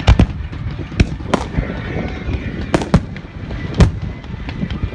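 Aerial fireworks bursting in a display, seen from close by: about six sharp bangs, some in quick pairs, over a continuous rumble. The loudest bang comes near the end.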